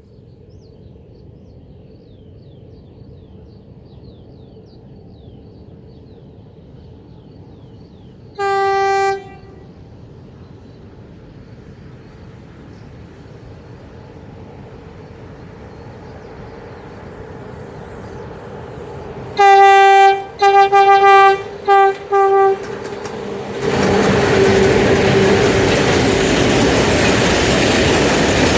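A train's horn, one single-tone blast, then about eleven seconds later a burst of four blasts, the first the longest. Near the end the train passes close by, with loud, steady noise of wheels on the rails.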